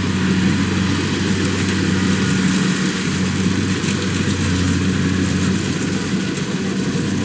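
Kubota DC-70 combine harvester's diesel engine running steadily with a constant low hum.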